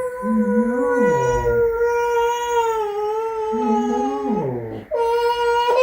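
A toddler crying in a long, steady wail. It breaks for a breath near the end and starts again, with a lower adult voice rising and falling underneath.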